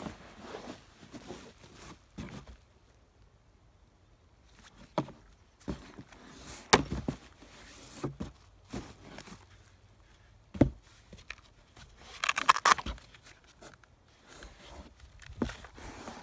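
A folding Jackery SolarSaga 60 solar panel being handled as it is folded, turned over and stood on its kickstand legs: scattered clicks and knocks, with a short rustling, scraping stretch in the second half.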